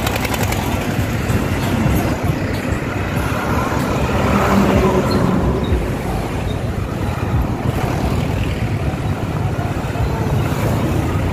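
Road traffic of tractors, motorcycles and cars passing close by on a highway, a dense steady noise of engines and tyres that swells as a vehicle passes about four to five seconds in.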